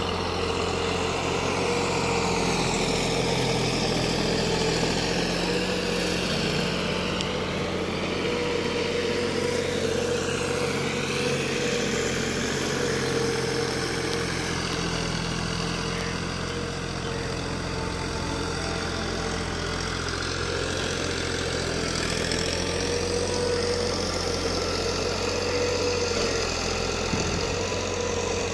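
Tractor's diesel engine running steadily under load, with a steady whine over the low engine note.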